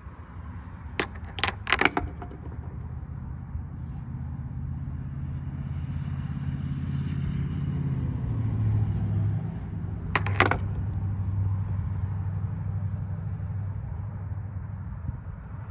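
A motor vehicle's engine running steadily, its hum growing louder and dropping in pitch about eight seconds in. Sharp clicks come in two quick clusters, three or four near the start and a couple about ten seconds in.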